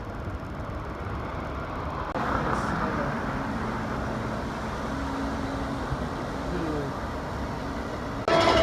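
Outdoor crowd ambience: distant voices chatting over a steady low rumble. A louder sound with several pitched, gliding tones starts suddenly near the end.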